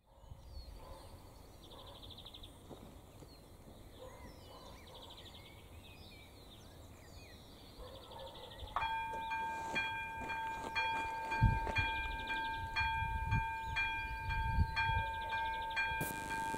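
Birds chirping, then about nine seconds in the AŽD ZV02 electronic bell of a Czech level crossing starts ringing, a steady repeated ding about twice a second: the crossing's warning has switched on for an approaching train. Low rumbles come in under the bell in the second half.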